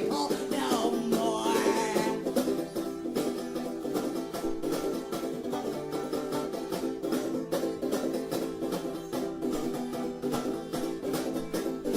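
Background music led by fast picked string instruments, banjo or mandolin-like, over steady chords, with a wavering melody line in the first couple of seconds.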